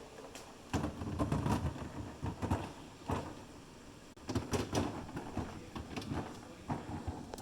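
Food containers being handled and set into a fridge: a run of knocks, clatters and sliding scrapes, bunched about a second in and again past the middle.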